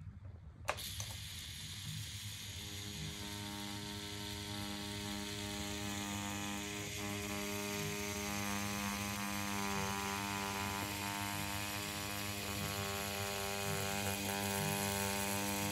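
Rotary tattoo machine running with a steady buzzing hum as its needles work black ink into synthetic practice skin. It switches on with a click just under a second in, and the hum grows fuller a couple of seconds later.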